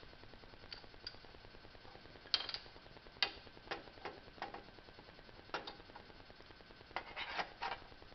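Scattered clicks and light knocks from handling small metal parts and tools while a spark plug is hooked up to its plug wire, with a small cluster of rattles near the end.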